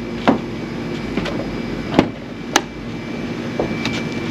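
A few sharp knocks and clicks, three of them louder, over a steady background hum.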